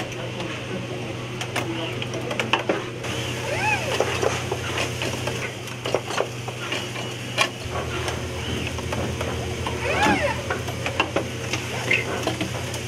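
Automated robotic assembly cell running: a steady machine hum with repeated sharp clicks and clacks from its pneumatic grippers and cylinders, and indistinct voices underneath.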